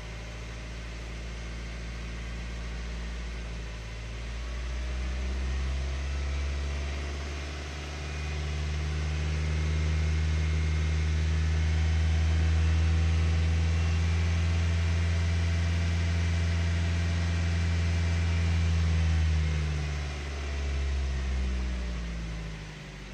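Ford Focus 2 1.6-litre 100 hp four-cylinder petrol engine revved up from idle and held at raised revs for about ten seconds, then let back down, with one short blip before it settles to idle. The owner is chasing an engine knock.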